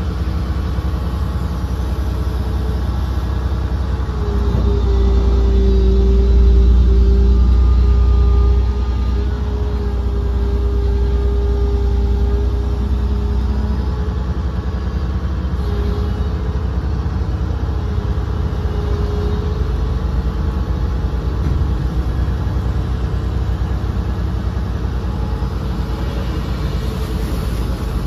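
Hydraulic excavator's diesel engine running steadily, heard from inside the cab, with a steady hydraulic whine as the boom and arm are worked. The engine grows louder from about four seconds in and settles back after about eight seconds.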